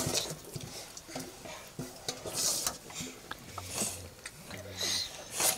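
Steel plates and spoons clinking and scraping as a family eats, with a few short slurps from a plate.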